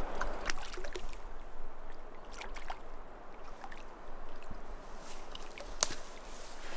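Water splashing as a small hooked brown trout thrashes at the surface of shallow water while it is brought in: a series of short, sharp splashes, with one louder splash near the end.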